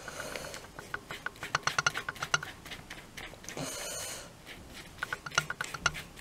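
Small paintbrush dabbing and scraping paint onto taped fabric over newspaper: a run of light, irregular taps and clicks, with a short rustle at the start and another about three and a half seconds in.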